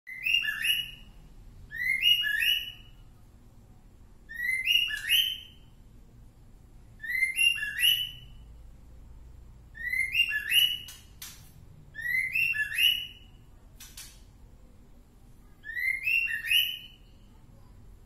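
A caged songbird repeats a short two-part whistled phrase seven times, about every two and a half seconds, a call likened to the name "Jokowi". Two sharp clicks come in the second half.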